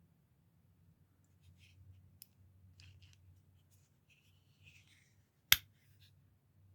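Milwaukee plastic-handled folding box cutter being handled: faint scrapes and small clicks, then one sharp snap of its mechanism about five and a half seconds in.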